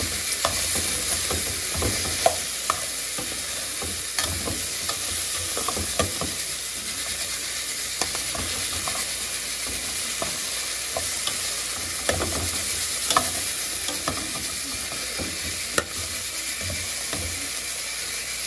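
Sliced okra sizzling as it fries in a stainless steel pot, stirred with a spatula that scrapes and knocks against the pan now and then.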